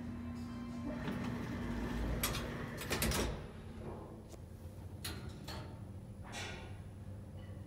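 Old 1971 express lift arriving: its steady hum stops about two and a half seconds in, then the car's sliding doors open with a loud rumble and clatter, followed by a few sharp clicks.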